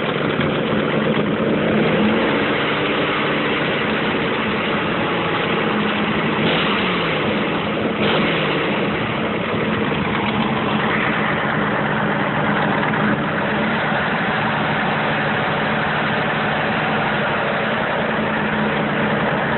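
Car engine idling steadily with a ticking, knocking noise.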